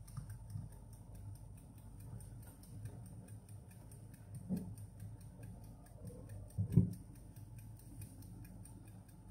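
Wind-up kitchen timer ticking steadily and faintly as it counts down a 20-minute cooking time. A soft knock comes about four and a half seconds in and a louder clunk near seven seconds, as the lid is handled and set on the soup pot.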